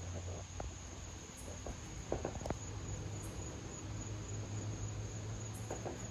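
Crickets trilling in one steady, high-pitched note over a low hum. A few short soft knocks come through, the loudest about two seconds in.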